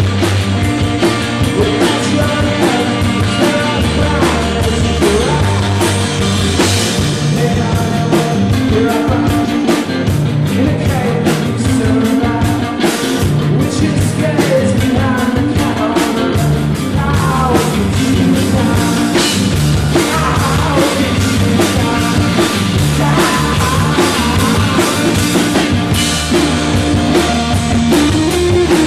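Live rock band playing loud and steady through the amplifiers: two electric guitars and a drum kit.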